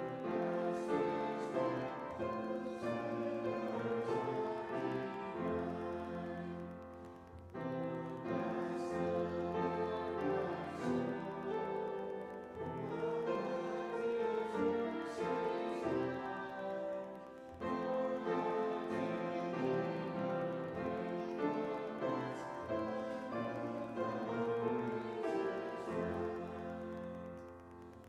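Instrumental church music led by piano, playing in phrases of about ten seconds with short breaks between them.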